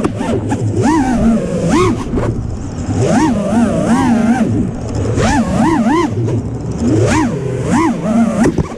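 FPV quadcopter's brushless motors whining, the pitch swooping up and down again and again as the throttle is punched and chopped through freestyle moves.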